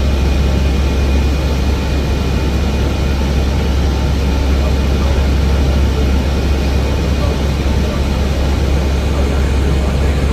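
Steady noise of an Airbus A320 airliner: a constant low rumble under an even hiss, with a few faint steady tones.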